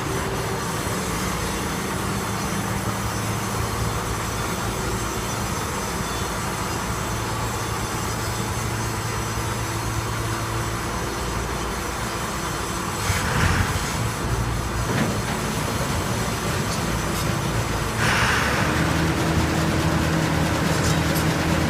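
A 1984 John Deere 1075 combine harvester's engine running steadily. About eighteen seconds in it gets louder and its note rises as the engine speeds up.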